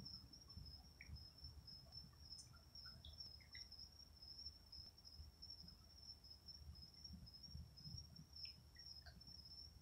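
Near silence: the steady, high-pitched trill of night insects such as crickets, with a few faint scattered chirps and a faint low rumble beneath.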